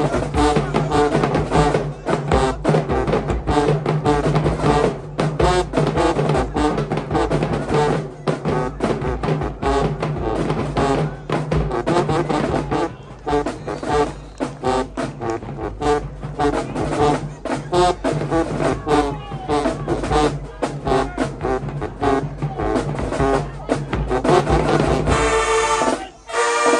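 Marching band playing: brass with a steady beat of drums, ending on held brass chords near the end.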